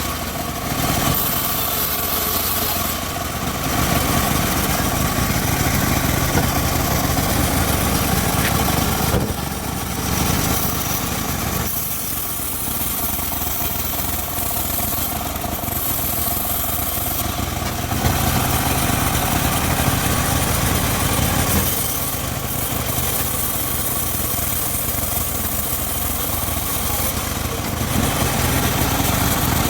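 Homemade engine-driven circular sawmill running steadily while ripping teak. Its sound turns brighter and a little louder for stretches, about a third of the way in, again around two-thirds, and near the end.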